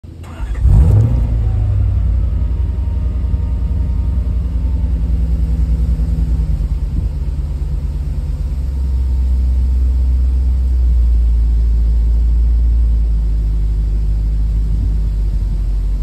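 1990 Lexus LS400's 1UZ-FE 4.0-litre V8 running through a custom exhaust with a Flowmaster Super 10 muffler and two Flowtech Terminator mufflers: it fires up about half a second in with a short rise in revs, then settles into a steady, deep idle rumble.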